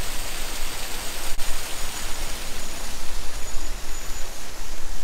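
Water gushing steadily through leaks in a wooden lock gate and splashing into the lock chamber below, a continuous rushing sound.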